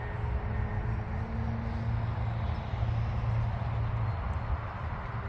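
Electric RC plane's motor and propeller giving a faint steady drone, mixed with wind buffeting the microphone as a low rumble.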